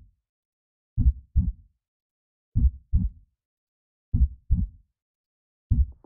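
Slow heartbeat sound effect: low double thumps repeating about every second and a half, with silence between them.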